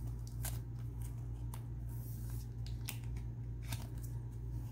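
A trading card being slid into a rigid clear plastic top loader, with a few light plastic clicks and scrapes as it goes in, over a steady low hum.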